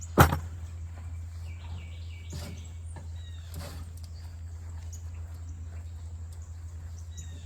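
A single sharp knock just after the start, then a few faint scuffs and rustles, with short bird chirps over a steady low hum.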